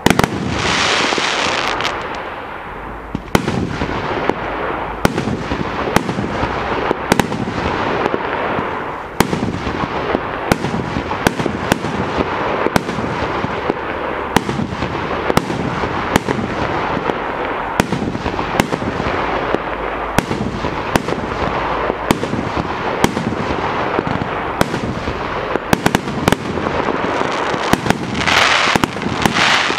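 Pharaon 100-shot professional fireworks cake firing in sequence: sharp bangs of bursting shells, about one every half second to one second, over a continuous hiss. The hiss swells louder near the end as a dense glittering burst goes off.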